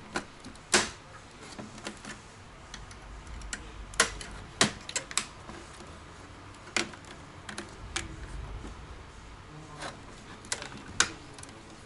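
Irregular sharp clicks and taps, about nine of them spread unevenly, from a laptop's plastic casing and parts being handled and snapped together during reassembly.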